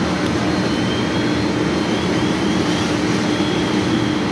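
Fire engine running its pump at a working house fire: a steady, loud engine drone with a held hum.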